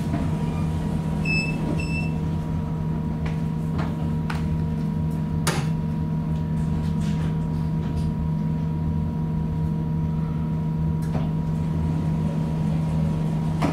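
Steady electrical hum of a Metronom double-deck coach standing at a station, heard from inside, with scattered faint clicks and two short high beeps about a second and a half in.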